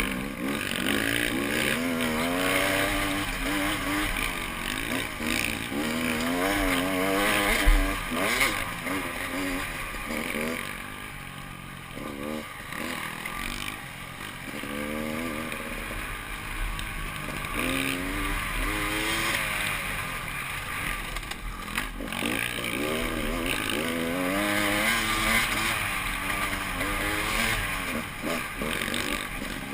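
Off-road motorcycle engine running under constantly changing throttle, its pitch rising and falling every second or so. It eases off and runs quieter for a few seconds about halfway through, then picks up again.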